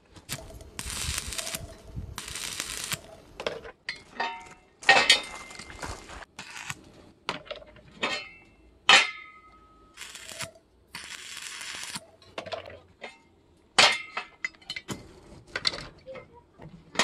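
Square steel tubing clinking and clanking as pieces are handled and set down, with a few crackling bursts of stick welding, each about a second long, near the start and about ten seconds in.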